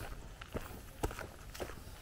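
Footsteps of a person walking on a hiking trail, a steady pace of about two steps a second.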